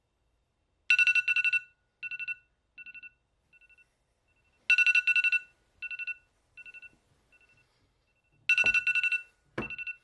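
Phone alarm beeping: clusters of rapid beeps on two pitches, each followed by quieter repeats that fade away, the pattern coming round about every four seconds. Near the end two dull knocks sound and the alarm stops.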